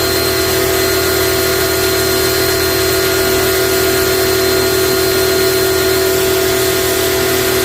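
A machine's motor running steadily at one unchanging pitch, with a constant hiss over it.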